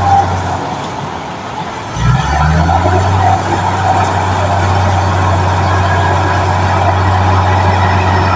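Heavy diesel engine running, easing off briefly, then revving up sharply about two seconds in with a short rise in pitch and holding a steady working drone.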